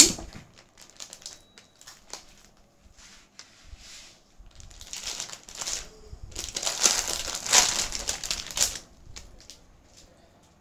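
Paper wrapping crinkling and rustling as a necklace is unwrapped by hand, in a few short bursts with the longest and loudest stretch in the second half.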